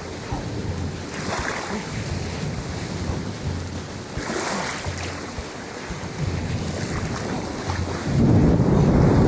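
Wind buffeting the microphone over a steady rush of water, with a stronger gust about eight seconds in.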